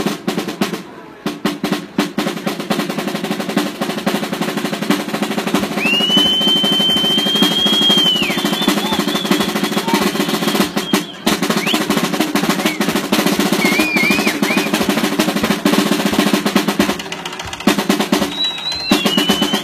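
Snare drums beating a fast, continuous roll that breaks off briefly about eleven seconds in and again near the end, with a high held tone lasting about two seconds near the middle.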